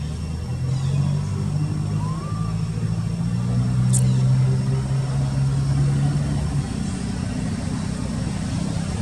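A motor engine running steadily, a low pitched hum that shifts pitch a couple of times and fades back about two-thirds of the way through. A short high chirp sounds about four seconds in.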